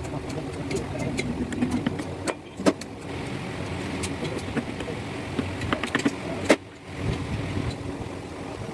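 Hand tools clinking and knocking on metal engine parts, with two louder sharp clanks, over a steady low rumble.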